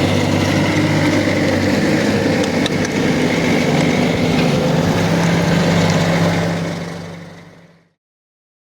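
Bobcat S510 skid steer's diesel engine running steadily, fading to silence near the end.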